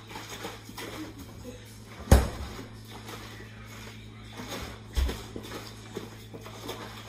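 Kitchen handling sounds: a refrigerator door shutting with a thump about two seconds in, then a plastic orange-juice jug being handled and shaken, with a second knock about five seconds in and a few lighter knocks, over a low steady hum.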